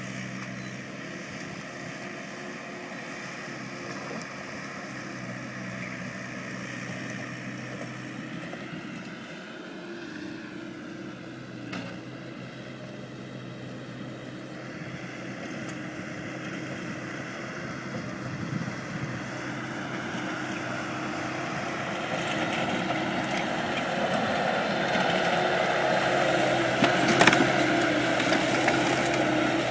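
Bobcat skid steer engine running steadily, getting louder over the second half, with a few sharp knocks near the end.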